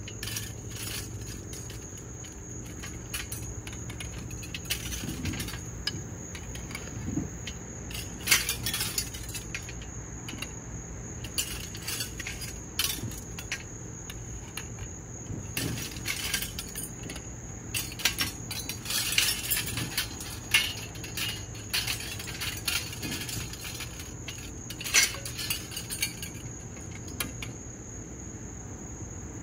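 Scrap copper pipe being handled, with irregular metallic clinks and knocks as pieces strike one another. A steady high-pitched whine sits under it.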